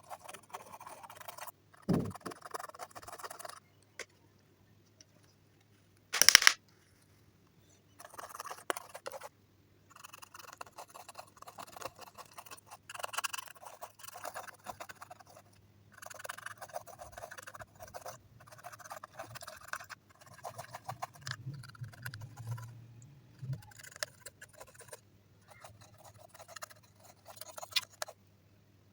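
Clear slime being squished and stretched by hand, in repeated stretches of sticky crackling and popping with short silent pauses between them. A dull thump comes about two seconds in and a loud sharp click about six seconds in.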